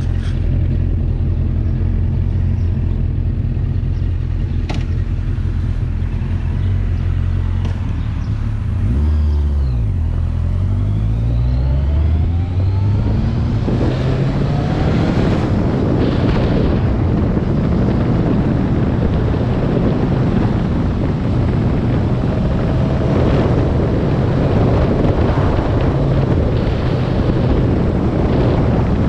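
Motor vehicle engine running under way; about nine seconds in its note drops and then climbs again over several seconds as it accelerates. From about fourteen seconds on, a strong rush of wind and road noise rises over the engine.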